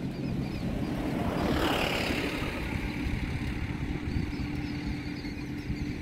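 Steady low rumble of motor traffic with a constant low hum, swelling into a hissing pass-by about two seconds in, with faint high bird chirps early on and again near the end.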